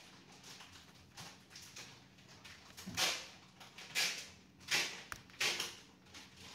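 A cloth wiped across a laptop's display panel in four quick swishing strokes from about halfway in, with a small click between the last two. Before that, only soft handling rustles.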